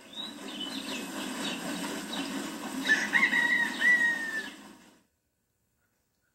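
Mill Creek Entertainment logo sound heard through a TV speaker: running water with birds chirping, the chirps strongest about three seconds in, fading out about five seconds in.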